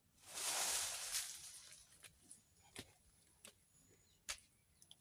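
A rustling noise lasting about a second and a half, followed by three sharp clicks or knocks about a second apart.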